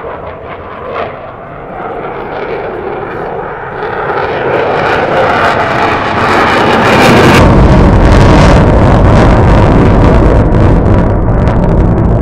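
Eurofighter Typhoon's twin EJ200 jet engines, a rushing roar that swells steadily as the jet comes closer. About seven seconds in it gives way suddenly to a much heavier, louder low rumble.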